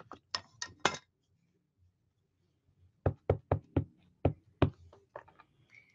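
A clear acrylic stamp block being tapped against a Gina K. Designs ink pad to ink a rubber stamp. A few light clicks in the first second, then a run of about six sharp knocks, several a second, from about three seconds in, with a few softer taps after.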